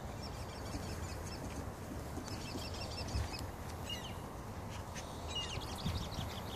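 Birds chirping: short, high notes in scattered bunches, over a low steady rumble.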